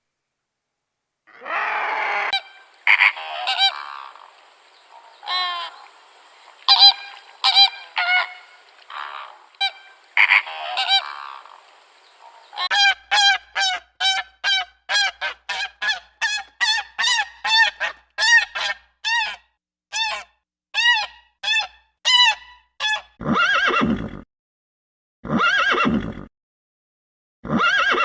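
Animal calls in several short clips: scattered calls at first, then a quick run of honking calls, about two a second, and a few longer, deeper calls near the end.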